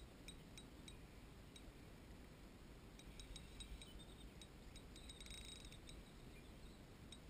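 Near silence, with faint scattered clicks and a brief faint patch of rapid clicking about five seconds in.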